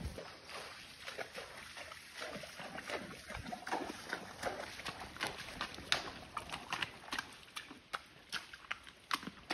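Horses walking through a shallow, stony creek: hooves splashing and knocking on wet gravel in a steady, uneven run of short splashes and clops.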